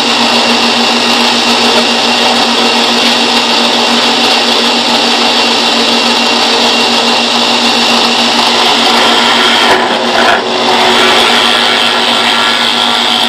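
Harbor Freight drill press, converted for wood carving, running at speed with a small carving burr in the chuck: a loud, steady motor and spindle whine with a steady hum beneath. The sound dips briefly about ten seconds in.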